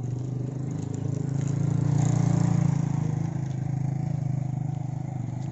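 Pickup truck engine running steadily, growing louder about two seconds in and then easing back.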